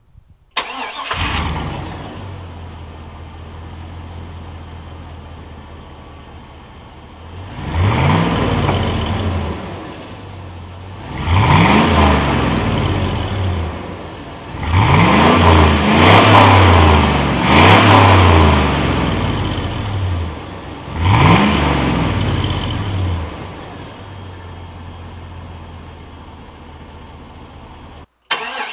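Chevrolet 5.3L LM7 V8 exhaust through a Cherry Bomb muffler: the engine starts about a second in and settles to an idle, then is revved about six times, each rev rising and falling back to idle, three of them in quick succession in the middle.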